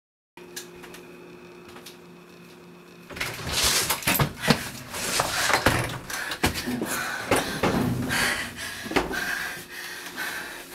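A low steady hum for about three seconds, then a busy run of sharp knocks, thuds and rustling from hurried movement and a door.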